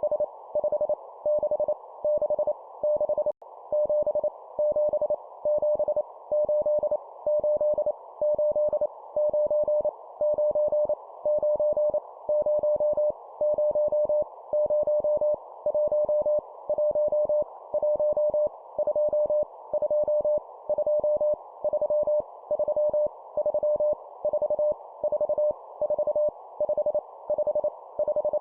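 Morse code (CW) sent at 25 words per minute: a single steady tone keyed on and off in dots and dashes, sending numbers each repeated three times, over a band of soft hiss that stays on between the characters. The audio drops out for a split second about three seconds in.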